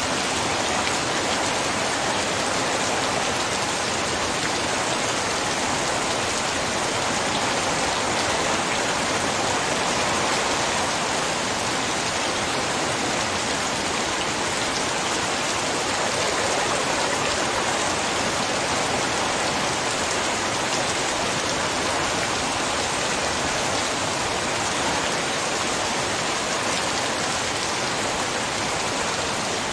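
Heavy rain falling in a steady, unbroken downpour.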